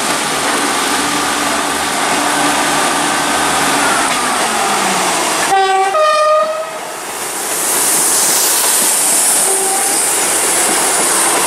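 A train passing through the station sounds its two-tone horn about halfway in, a lower note and then a higher one. Wheel-on-rail noise then builds up and holds, with some clickety-clack over the rail joints.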